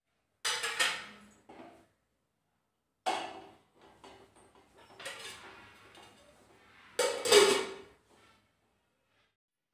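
Metal saucepan and its lid clanking against a gas stove's burner grate. There are several sharp clatters, the loudest near the end as the lid goes onto the pan.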